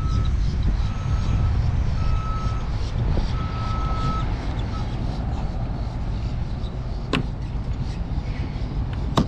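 A low, steady rumble with a series of short electronic beeps, about one a second and each longer than the last, over the first four seconds. Two sharp clicks follow near the end.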